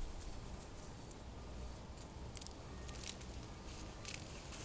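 Two hens dust bathing in loose dry soil: short scratchy rustles of feathers and dirt as they wriggle and flick soil over themselves, coming in little clusters, the busiest about two and three seconds in and again near the end as one hen shakes her wings.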